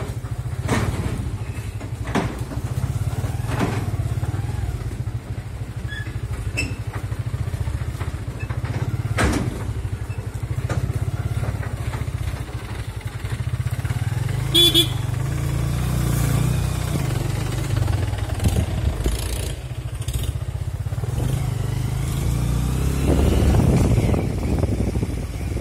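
Motorcycle engine running steadily with a low rumble while riding along a dirt forest track, a few sharp knocks and rattles over it. It gets louder near the end.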